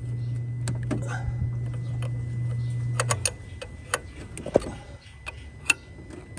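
Ford Ranger's common-rail diesel being cranked by its starter: a steady hum for about three seconds that cuts off without the engine catching, the truck's hard-starting-when-hot fault. Sharp clicks and taps sound throughout.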